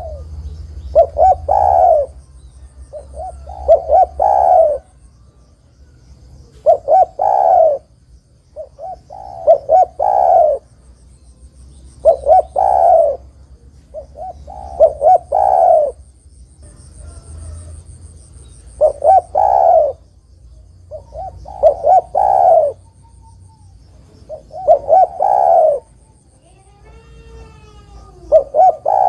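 Spotted dove (derkuku) cooing: a repeated phrase of a few short coos ending in a longer coo, about every two and a half seconds. A faint, high, broken trill sounds above it.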